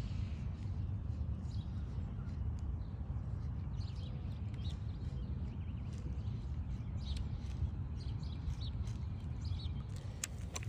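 Small birds chirping now and then in short high notes over a steady low rumble.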